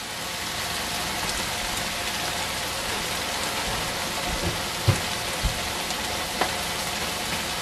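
Green beans stir-frying in a wok, sizzling steadily, with a few light clicks near the middle.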